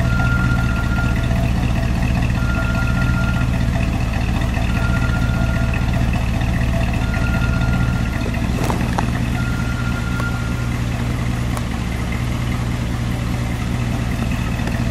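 1960 Chevrolet Impala's 348 cubic-inch V8 idling steadily with a low rumble, heard at the tailpipe of its dual exhaust.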